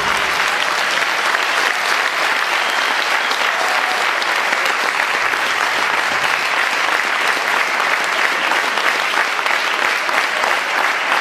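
Audience applauding steadily: a dense mass of many hands clapping at the end of a stage dance performance.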